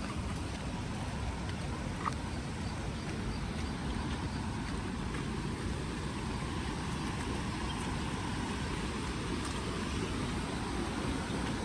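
Steady low rushing noise, strongest in the low end, with a faint click about two seconds in.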